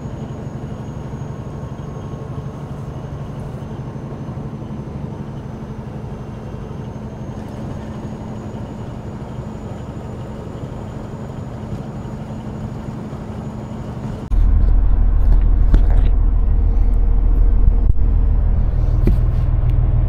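In-cab noise of a Peterbilt 389 with a Caterpillar 6NZ (C15 inline-six) cruising at highway speed: a steady engine and road drone with a faint high whine. About fourteen seconds in, it cuts to a much louder, deep steady rumble heard inside the sleeper, with a few light clicks.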